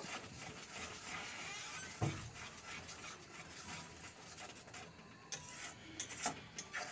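Steel spoon stirring and scraping a thick spice paste around a metal kadai: a soft scraping with a knock of spoon on pan about two seconds in and a few light clinks near the end.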